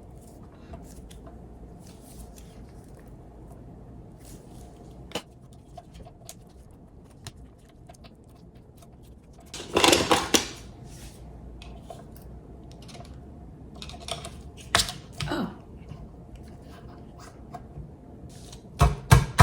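Small clicks and rattles of metal stand-mixer parts being handled, with a louder clattering rustle about ten seconds in. Near the end a quick run of heavy thumps begins as a part is knocked into place on the mixer.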